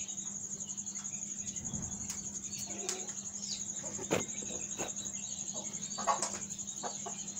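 A few soft, low clucks from an Aseel rooster and hen, with a couple of sharp taps, over a steady, fast-pulsing high cricket trill.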